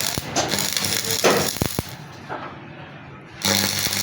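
Workshop metalwork: metal parts clink and knock sharply a few times. About three and a half seconds in, a loud, steady buzzing hiss with a low hum starts up.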